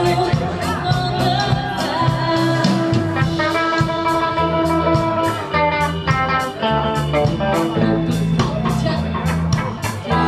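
Live band playing: electric guitar and bass guitar over a steady beat of drum and cymbal hits, with a woman singing into a microphone.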